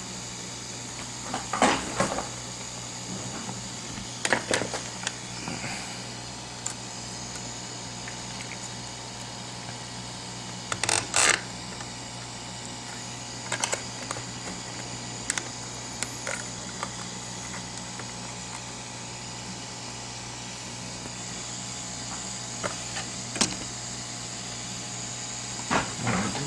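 Scattered clicks and knocks of a phone logic board being set into metal board clamps and the holder arms adjusted, over a steady hiss and low hum.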